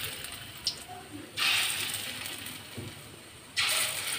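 Hot mustard oil sizzling as balls of lentil-and-potato fritter batter are dropped in one at a time. A fresh burst of sizzling comes about a second and a half in and again near the end, each fading away.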